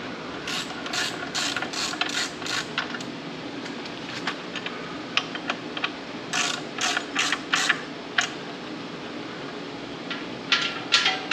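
Hand socket ratchet clicking in quick back-and-forth strokes as the clutch pressure plate bolts are run down onto the flywheel, in three spells of ratcheting with pauses between.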